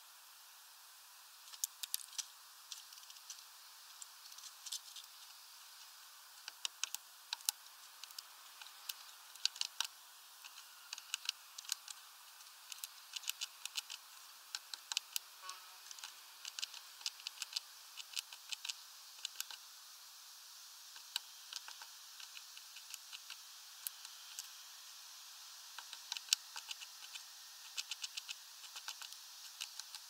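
Irregular sharp taps and clicks, often in quick clusters, of a great tit pecking and hammering at sunflower seeds on a bird-feeder tray, over a faint steady hiss.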